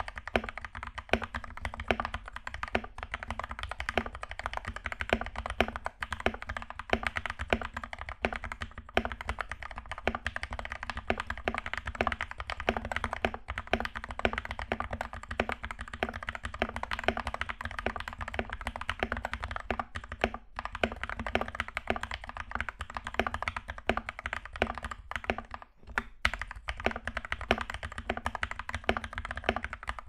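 Continuous fast typing on a Royal Kludge RKG68 mechanical keyboard fitted with lubed Gateron Red linear switches and stock keycaps: a dense run of keystroke clacks, briefly pausing about 20 and 26 seconds in.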